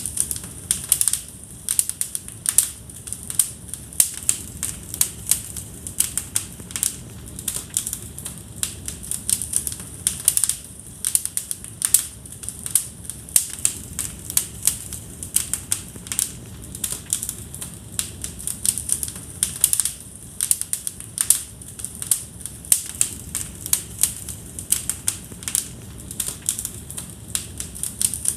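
Wood fire in a fireplace crackling, with many irregular sharp pops and snaps over a soft, steady low rumble.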